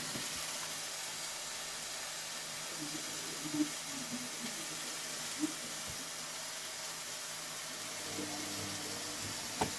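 Steady sizzle of food frying in a pan, with a few faint taps from hands handling a taco on a plastic cutting board.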